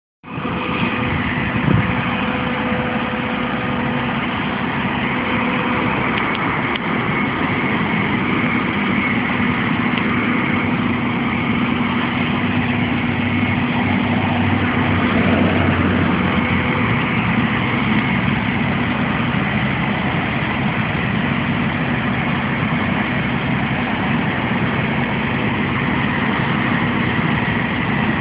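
Aerial ladder fire truck's engine running steadily at idle, with the ladder raised, giving a constant hum with a thin whine through it.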